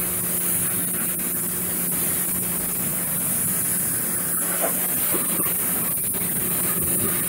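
Pressure washer spraying water onto a motorcycle: a steady pump hum under the constant hiss of the jet.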